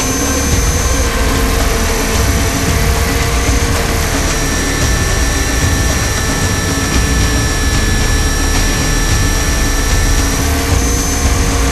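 Onboard sound of a 500-size radio-controlled UH-60 Black Hawk scale helicopter in flight: a steady high whine over a heavy low rumble. The whine's pitch shifts slightly about four seconds in and again near the end.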